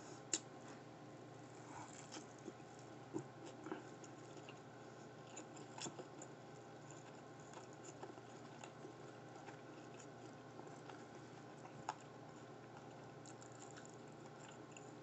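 Faint chewing of a mouthful of deep-fried sushi burrito: scattered soft mouth clicks and smacks over a quiet steady hiss.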